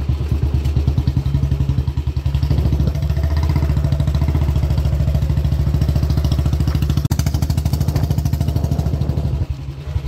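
Motorcycle engine running steadily while riding, with a fast, even beat of firing pulses.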